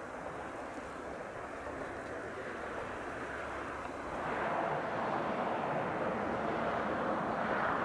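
Distant diesel train running along the line, a steady rumbling hiss. About four seconds in it grows louder as the train crosses a steel truss bridge.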